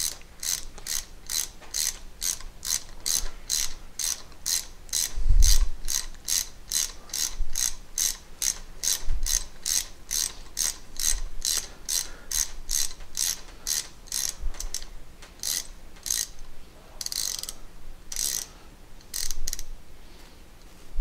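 Steady clicking, about three clicks a second, as a hex (Allen) wrench turns the set screw of a metering pump's pressure relief valve, thinning to a few scattered clicks near the end. The screw is being turned in to about 14 turns to set the oil bypass at roughly 100 to 110 psi.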